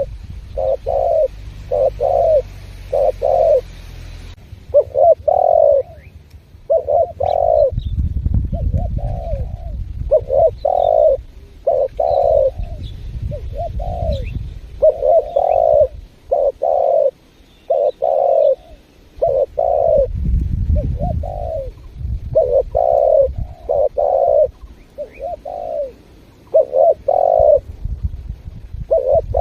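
Spotted dove (tekukur) calling vigorously: a steady run of low, mellow coos in repeated phrases. A low rumble comes and goes underneath, and faint high chirps of small birds sit in the background.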